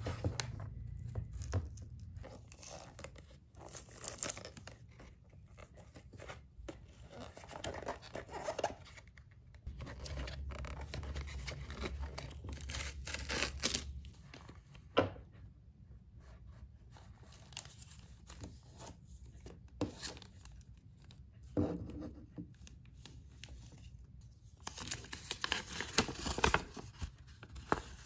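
Plastic blister packaging being cut open and its cardboard backing torn away: irregular crackling of stiff plastic and ripping of card, with scattered sharp clicks. Near the end, a folded paper instruction manual rustles and crackles as it is unfolded.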